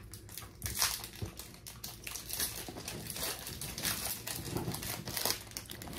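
Foil Pokémon booster pack wrapper crinkling and crackling as it is torn open and handled.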